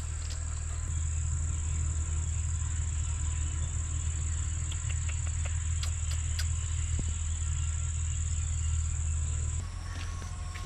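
Insects calling in one unbroken high-pitched note that breaks off near the end, over a steady low rumble.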